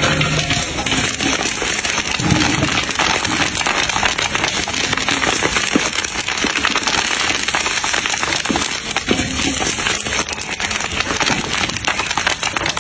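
Red chili peppers crackling and sizzling in a large wok over a wood fire, a dense hiss full of tiny pops, with a few louder scrapes of a wooden spatula stirring them.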